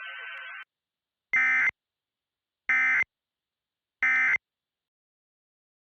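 Emergency Alert System end-of-message data signal: three identical short, harsh digital chirps about a second and a half apart. They mark the end of the alert. Before them, a hiss with a steady tone cuts off under a second in.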